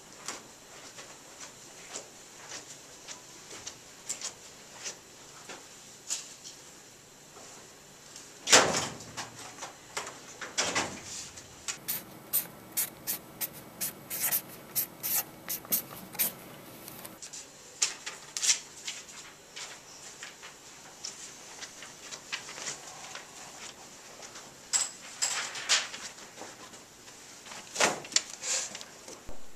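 Scattered small clicks and knocks, with one loud knock about eight seconds in. In the middle, a felt-tip marker writes on paper: a rapid run of short strokes lasting about five seconds.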